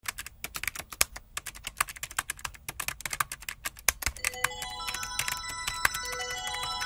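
Rapid, irregular key clicks of a typing sound effect, with music notes coming in about four seconds in.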